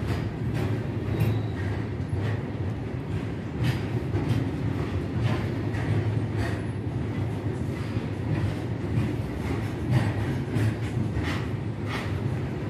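Freight train wagons rolling slowly past: a steady low rumble with irregular clicks and clanks of the wheels passing over rail joints.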